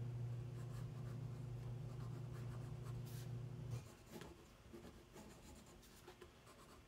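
Pen scratching lightly on paper in short strokes as a sketch is drawn. A steady low hum runs under it and cuts off about four seconds in.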